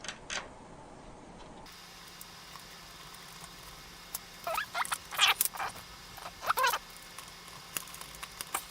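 A few short, high-pitched squeaking calls from a small animal, bunched in the middle stretch.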